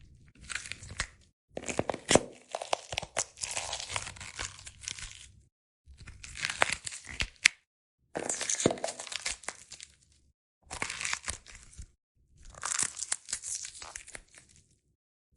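A pepper being crushed as a bone-crunch sound effect: crackling, snapping crunches in about six separate bursts, each cut off by a short silence.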